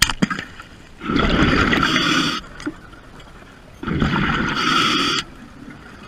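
Underwater noise: a sharp click at the start, then two loud bursts of water noise, each about a second and a half long and a few seconds apart.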